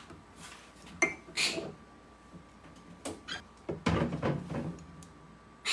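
Scattered light taps and clicks of a teaspoon against a mug, with the sharpest click about a second in.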